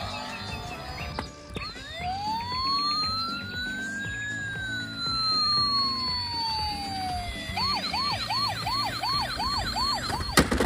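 Siren: one slow wail rising and then falling, then switching to a fast yelp about three times a second near the end, over background music.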